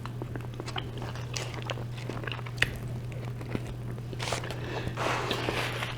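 A person chewing a mouthful of gyro close to the microphone: small wet mouth clicks and crunches, with a sharper crunch about two and a half seconds in.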